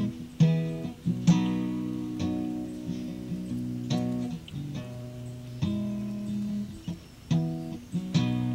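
Acoustic guitar music: picked notes and chords struck about once a second and left to ring.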